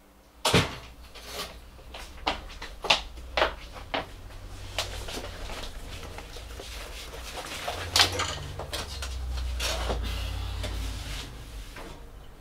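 A person moving about and settling at a desk: a run of sharp knocks about half a second apart, then rustling and one more knock near the eighth second, with a low rumble of movement that fades near the end.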